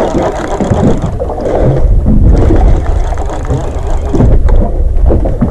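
Wind buffeting the microphone aboard a small boat at sea: a loud, uneven low rumble, with water noise around the hull.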